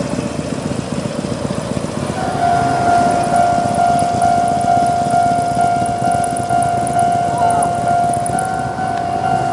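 Japanese railway level-crossing alarm of the older electronic type, switching on about two seconds in and repeating a steady chime about twice a second: the signal that a train is approaching. A vehicle's low rumble runs underneath.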